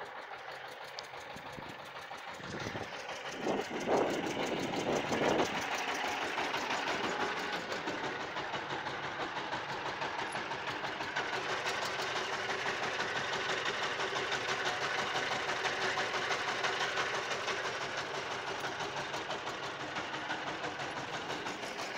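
Shifeng SF350L tractor's diesel engine idling steadily with an even clatter, a little louder from about four seconds in.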